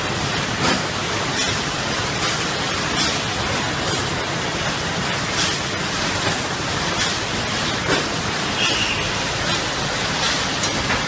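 Automatic case packaging machine running: a steady hiss with faint, irregular clicks about once a second.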